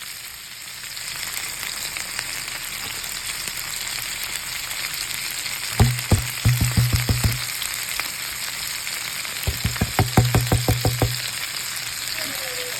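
Lamb chops frying in butter with garlic, a steady hissing sizzle in the pan. Twice, about six and ten seconds in, a run of rapid taps with a low hum under it breaks in for a second or so.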